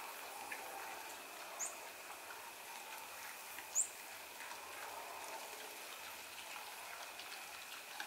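Faint outdoor evening ambience: a steady thin high hum with a few soft ticks, and two short high bird chirps about two seconds apart.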